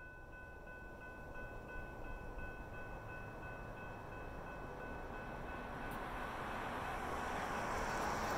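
Railway level-crossing bell ringing steadily while an approaching VIA passenger train's rumble grows steadily louder, drowning the bell out near the end.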